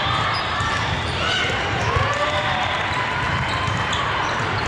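Sneakers squeaking on a gym floor in several short chirps during an indoor volleyball game, over a steady hubbub of crowd voices in a large hall.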